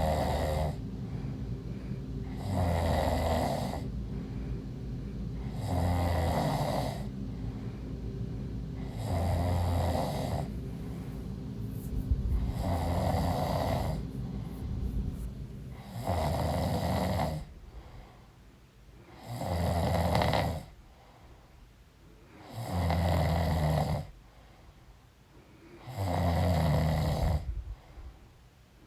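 A pregnant woman snoring in her sleep: about nine snores, one every three seconds or so, each about a second long. A steady low hum runs underneath for the first half and then stops.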